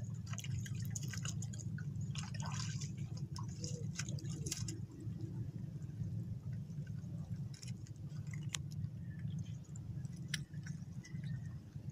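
Wet footsteps in flip-flops splashing and squelching through shallow tide pools on a rocky reef flat, with small clicks of rock, mostly in the first half. A steady low rumble runs underneath.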